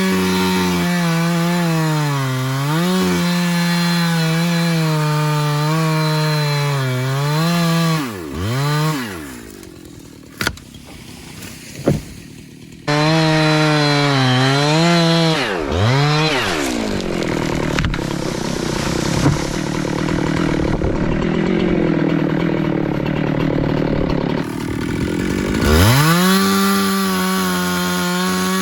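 Jonsered chainsaw at full throttle making a back cut through a tree trunk, its pitch sagging and recovering under load. About eight seconds in it drops back to idle; there are two sharp cracks, and about five seconds later it revs up and cuts again.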